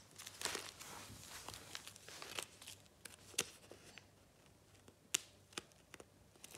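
Backing paper being peeled off a Panini football sticker: faint crinkling of paper with a few sharper ticks as it comes away.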